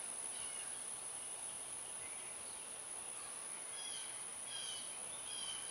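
Quiet background ambience with a steady high-pitched hiss, and a few faint bird chirps in the last couple of seconds. The oil pouring into the filler is not plainly heard.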